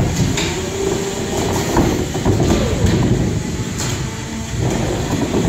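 Beetleweight (3 lb) combat robots fighting: steady motor noise from the robots' drives and weapons, with sharp clanks of hits about half a second in and near four seconds.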